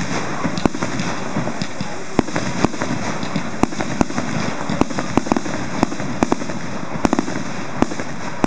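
Fireworks display: many sharp bangs and pops at irregular intervals, a few each second, over a steady background noise.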